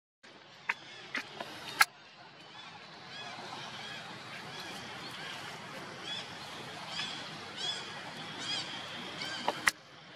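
Short, high-pitched animal calls repeating every half second to a second over outdoor background noise, with a few sharp clicks near the start and two near the end.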